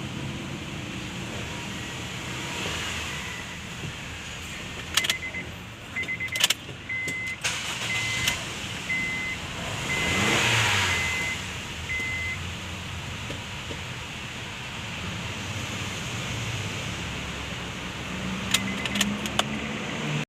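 A car's engine running steadily at a low idle, with a high warning chime beeping about once a second for several seconds. Sharp clicks come in two clusters, a few seconds in and again near the end, and a broad swell of noise rises and fades about halfway through.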